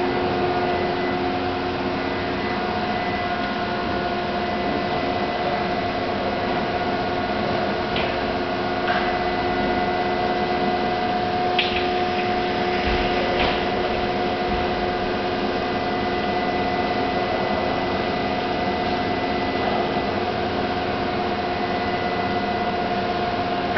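Large Aschersleben gantry machine tool running, a steady hum with a constant whine and a few light clicks near the middle.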